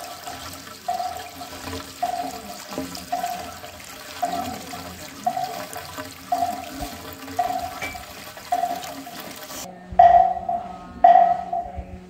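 Moktak (Buddhist wooden fish) struck steadily about once a second in temple prayer, over a rush of running water. Near the end the water falls away and the strikes ring out louder and clearer.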